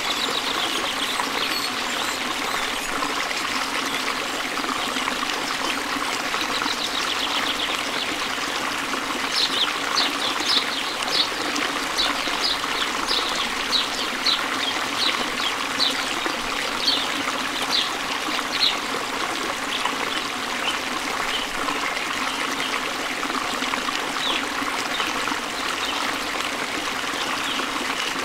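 Steady trickling, running-water noise. Through the middle, a run of short high chirps repeats about twice a second.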